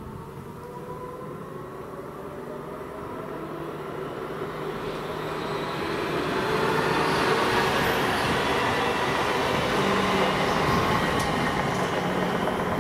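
DB Regio electric multiple unit pulling away from a station stop and passing close by: the traction motors whine, rising in pitch as it gathers speed, over wheel and rail noise that grows loud about six seconds in.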